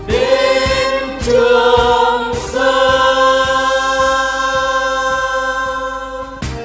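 Song with a backing band: singing that slides up into long held notes, the last held for about four seconds before it stops near the end, over a steady beat of about two strokes a second.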